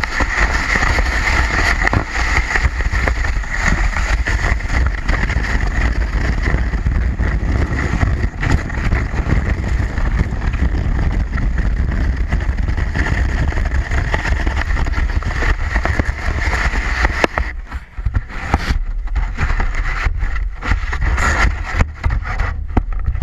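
Sled sliding fast down a snowy hill, a loud steady hiss and scrape of the sled over the snow, with wind rumbling on the action camera's microphone. Near the end the run breaks up into uneven scuffs and knocks as the sled slows and tips.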